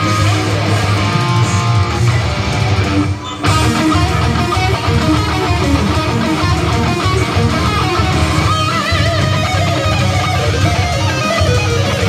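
Electric guitar played through a Kemper profiling amplifier: fast lead lines with wavering, bent notes. The playing drops away briefly about three seconds in.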